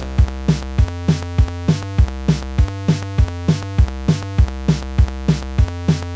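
Background electronic music: a synthesizer tune over a steady, fast drum-machine beat of about three kicks a second.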